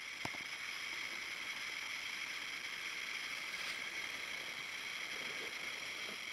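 Steady faint hiss of still air and the camera's own microphone noise, with one small handling click just after the start.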